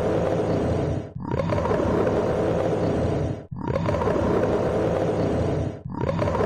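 Polar bear growling: a run of long, low, rough growls, each about two seconds long, with short breaks between them.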